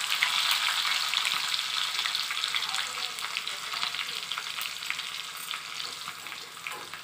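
Crushed garlic cloves and dried red chillies sizzling in hot oil in a small kadai, a tempering for dal. It is a steady hiss with fine crackles, slowly dying down.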